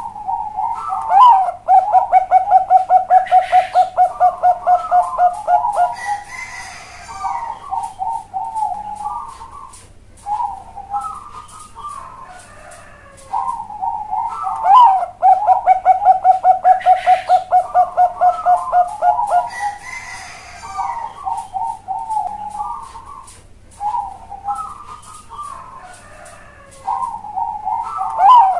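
Zebra dove (Bangkok-type perkutut) singing its cooing song, bred for a big, hollow voice. The song comes three times. Each starts with a couple of opening notes, runs into a long fast string of even coos at about five a second, and trails off in softer, scattered notes.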